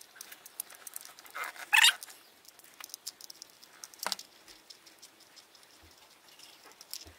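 Small clicks and scrapes of a knife tip working the screw of a plastic toy RC car's battery cover, with light taps of fingers handling the plastic. A louder rasping scrape comes a little under two seconds in, and a sharp click at about four seconds.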